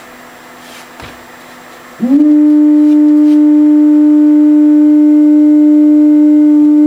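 Steady beat tone of the Yaesu FT-101ZD's crystal calibrator marker heard through the receiver's speaker, used as a stand-in received signal for peaking the preselector. After faint receiver hiss, the tone comes in loudly about two seconds in with a quick upward slide as the dial is tuned onto the marker, then holds one pitch with overtones.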